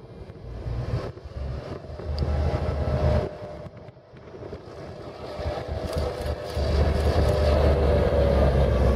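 Queensland Rail diesel-electric locomotive 2485H approaching and passing close, its engine running in a deep rumble that grows much louder about six and a half seconds in. Wind buffets the microphone in the first three seconds.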